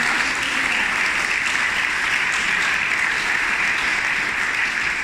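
Audience applauding: a room of seated guests clapping steadily.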